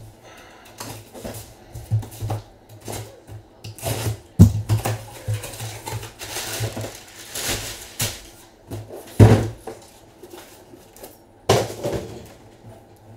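Cardboard shipping case being opened and emptied by hand: cardboard scraping and flaps rustling, with irregular knocks and thuds as the boxed packs inside are pulled out and stacked. The loudest thumps come about four and nine seconds in.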